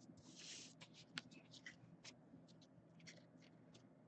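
Faint handling of trading cards: soft swishes and small ticks as cards are slid off a stack and flipped through, over a low steady room hum.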